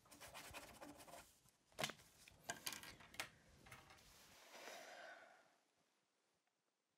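Faint pencil scratching on paper with a few sharp taps, then a woman's breathy sigh about four and a half seconds in.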